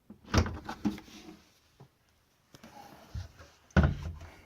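A few knocks and clunks, with the loudest thump near the end: the loose inner drum of a front-load washer being handled and lifted, its broken spider letting it shift apart from the outer tub.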